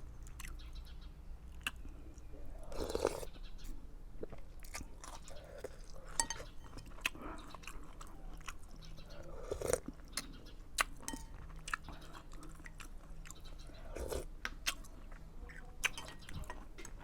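A person chewing food close to the microphone, with many small clicks and crunches and three louder, longer bursts of noise spread through it.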